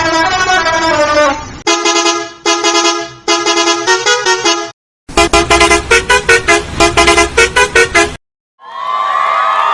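Musical bus horn playing a tune in several edited variations: held, shifting horn notes, then choppy honked notes, a brief silence, then rapid honks about five a second. After a second short silence, a loud crowd-cheering sound starts near the end.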